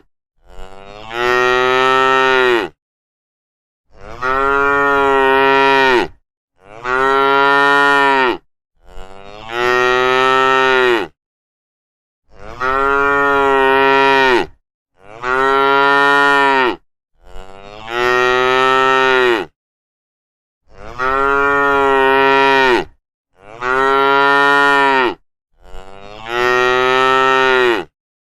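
Cattle mooing: about ten long, loud moos one after another, each lasting around two seconds, with brief gaps between them.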